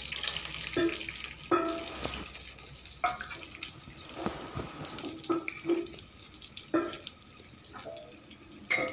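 Hot oil sizzling softly in a frying pan with chopped garlic, as sliced onions go in. A few brief, louder sounds stand out over the steady sizzle.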